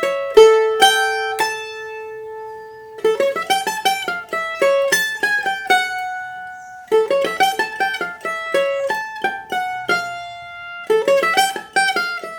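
A bandolim (Brazilian mandolin) played solo. Short phrases of quick plucked notes climb to held notes that ring out, and a new phrase starts about every four seconds.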